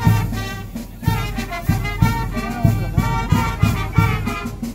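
Brass band music: held brass notes over a steady beat of about three strokes a second.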